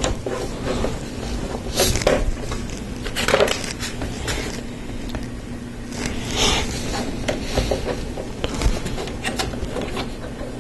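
Plastic Lego Technic pieces clicking and rattling as they are handled, picked through and pressed together. There are short rustling scrapes about two, three and a half, and six and a half seconds in.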